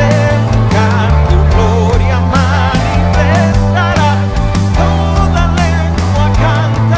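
Live worship band playing a rock-style song: drums, bass and electric guitar, with a wavering melody line on top.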